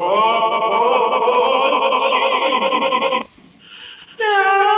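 A person's voice in a long, high, wavering 'aaah', the drawn-out build-up of a sneeze. It rises at first, is held about three seconds and cuts off suddenly; a second held 'aah' begins near the end.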